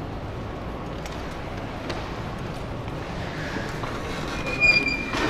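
Steady low background rumble, then a glass door with a metal bar handle is pushed open, giving a short high squeak about four and a half seconds in and a click just after.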